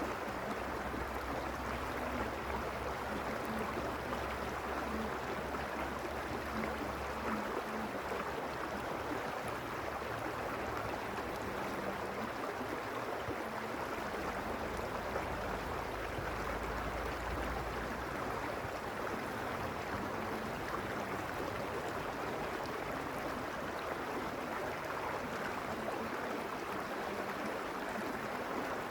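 A mountain creek flowing in a steady, even rush of water.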